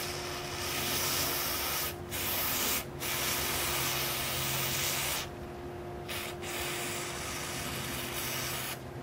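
Aerosol silicone lubricant spray hissing through a straw nozzle onto an airsoft piston head's O-ring. It comes in several bursts of one to two seconds with short breaks between them, and stops near the end.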